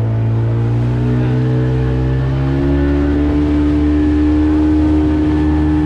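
Outboard motor driving a small inflatable boat under way, running steadily, its pitch rising slowly as it picks up speed.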